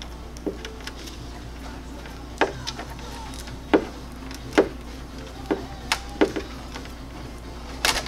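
Irregular sharp clicks and snaps, about eight of them, as wiring and electrical tape are handled and wrapped around a wire connection, over a steady low hum.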